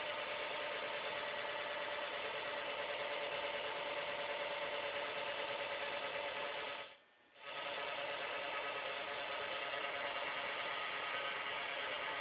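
Homemade four-oscillator drone synth played through a DIY buzz box fuzz circuit: a steady, buzzy electronic drone of several stacked tones. It cuts out for about half a second around seven seconds in, then comes back.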